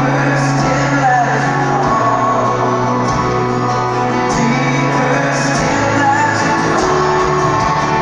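Live Christian worship band playing loudly over a stadium PA, with a singing voice over sustained chords and bass, heard from high in the stands.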